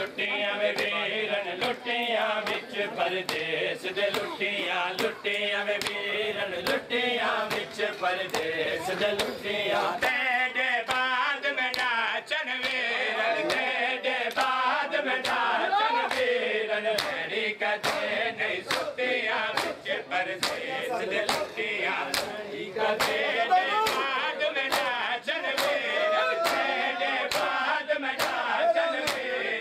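Crowd of men chanting a Muharram noha together while beating their bare chests with open palms (matam), the slaps landing in a steady rhythm a little over once a second.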